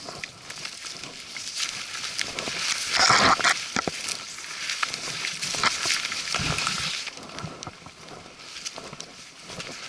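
Footsteps and rustling as a hiker pushes through dry brush and forest litter, with many small snaps and clicks of twigs and branches brushing against clothing and the camera; the loudest rustle comes about three seconds in.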